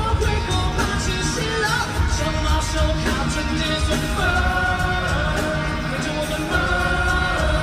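A pop-rock song: a male singer's voice over a full band with a heavy, driving beat.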